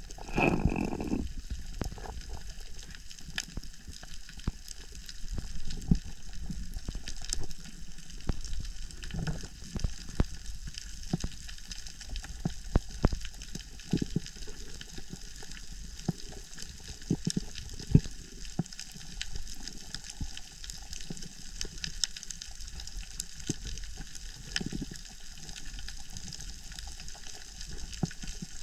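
Underwater reef sound: a steady hiss of water with many scattered sharp clicks and crackles, and a louder low rush right at the start.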